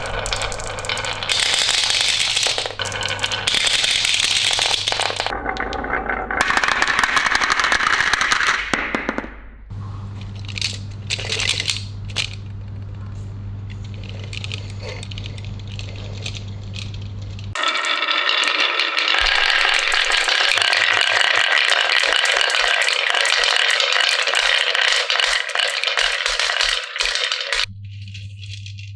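Marbles rolling and rattling down a marble run's tracks, with separate clicks and clatters as they drop between pieces. A long, loud stretch of continuous rattling runs from about two-thirds of the way in until shortly before the end, and a steady low hum sounds underneath in parts.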